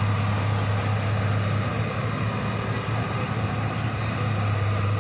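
A heavy diesel engine running steadily, a constant low drone that does not change speed.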